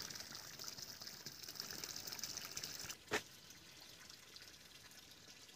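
Flowing water, a steady rushing hiss, louder for about the first three seconds, then a single sharp click and a fainter steady hiss.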